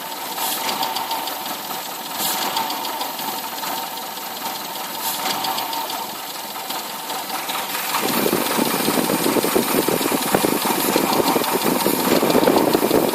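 Engine idling while it is checked for vacuum leaks; about eight seconds in, the running turns louder and rougher.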